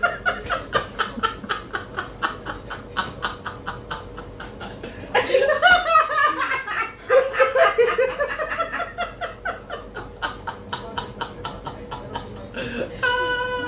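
A man and a woman laughing hard together, in long runs of quick, rhythmic laughs that get louder about five seconds in.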